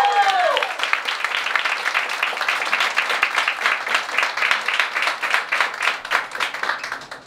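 Audience applauding in a small room right after a song ends: the last held sung notes fade in the first half second, then dense clapping follows and dies away near the end.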